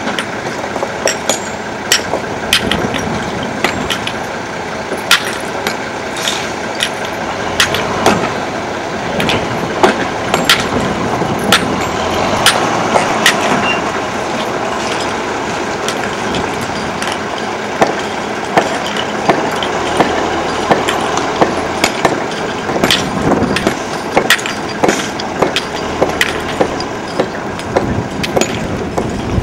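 Iron hammers striking granite rocks by hand, breaking them into gravel: sharp, irregular clacks, sometimes several a second, over a steady background noise.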